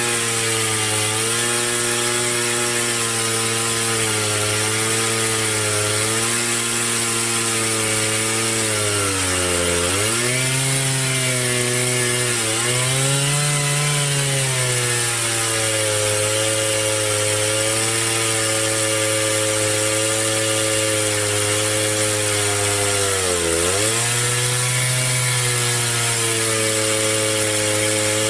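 Two-stroke chainsaw running at high speed, ripping lengthwise through a log to saw it into boards. Its steady high pitch dips sharply and recovers three times as the engine bogs under the cut.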